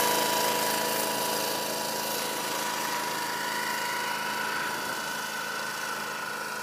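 Small ride-on tractor's engine running steadily under a hiss from its mounted brush sweeping the rubber-crumb artificial turf. Both fade slowly as the tractor moves away.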